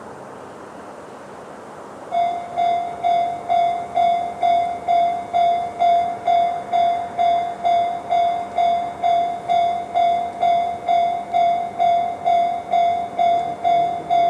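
Japanese railway level-crossing warning bell, the electronic JR standard tone, starting about two seconds in and ringing steadily at about two strokes a second, the crossing's warning that a train is approaching.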